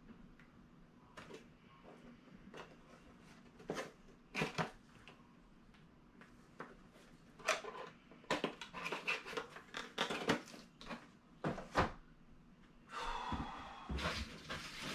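Irregular clicks, knocks and rustles of products and their packaging being handled, sparse at first and busier from about halfway, with a longer rustling stretch near the end.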